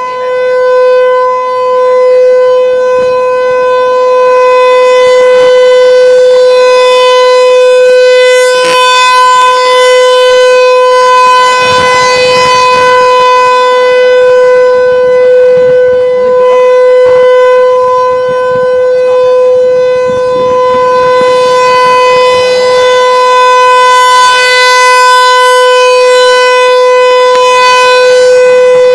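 ASC Tornado T-128 outdoor warning siren sounding a steady alert tone for its monthly test: one loud held pitch that does not rise or fall. Its sound grows brighter and then fades back twice as the rotating horn sweeps round.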